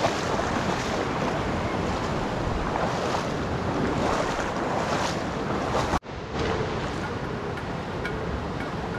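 Shallow river water rushing over stones, with wind buffeting the microphone. The sound cuts out abruptly for an instant about six seconds in, then resumes with faint regular ticks over it.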